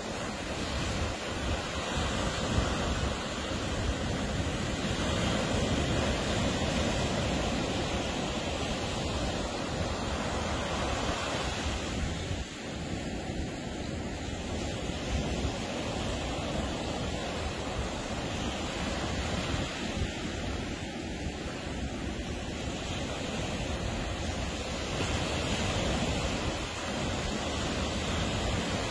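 Ocean surf breaking and washing onto a beach: a continuous wash of waves that swells and eases every few seconds.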